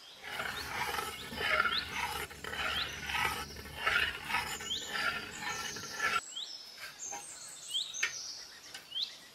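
Steel spoon stirring and scooping hot milk in an aluminium pan to cool it, with liquid sloshing and scraping that stops abruptly about six seconds in. Birds chirp briefly every second or so throughout.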